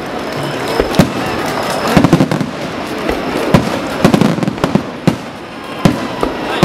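Aerial firework shells bursting overhead: sharp bangs at irregular intervals, roughly once a second and sometimes two in quick succession, with crackling between them.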